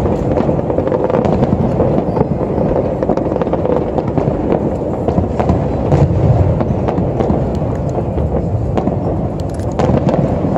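Aerial fireworks display going off in quick succession: many sharp bangs and crackles over a continuous low din.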